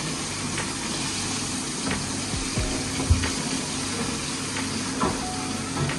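Battered chicken pieces deep-frying in hot oil, a steady sizzle, with a few light knocks of a utensil, the sharpest about three seconds in.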